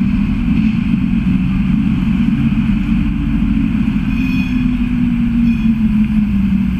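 Double-decker bus engine running close by: a loud, steady low rumble with a droning note that sinks slightly near the end, over city street traffic.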